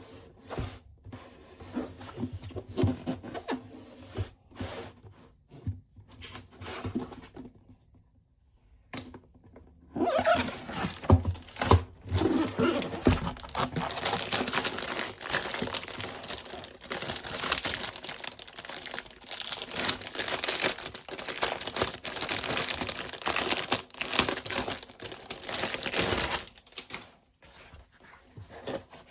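Packaging being handled and opened: scattered clicks and knocks, then from about ten seconds in a long stretch of crinkling and tearing that dies down near the end.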